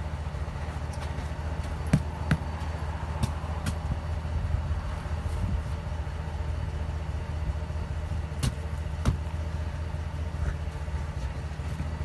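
An engine idling steadily with a low hum. Two pairs of short, sharp clicks stand out over it, one pair early on and another past the middle.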